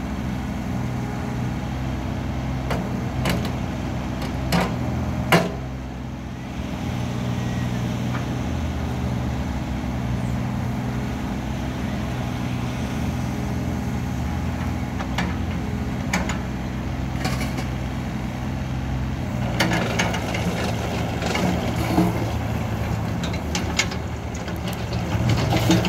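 Takeuchi TB235R mini excavator's diesel engine running steadily as the boom, arm and bucket are worked, with several sharp knocks from the working gear. From about two-thirds of the way in the sound turns rougher and noisier as the machine moves.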